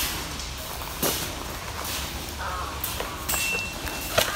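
A few sharp snaps of airsoft gunfire and BB hits in an airsoft game, about three spaced a second or more apart, the last and loudest near the end.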